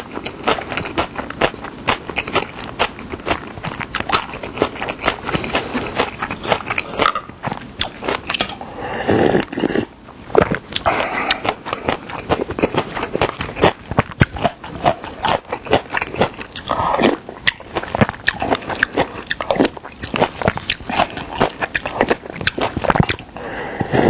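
Close-miked chewing of yeolmu (young summer radish) bibimbap: a dense run of wet, crunchy mouth clicks and smacks. A slurp of doenjang soup from the stone bowl comes near the end.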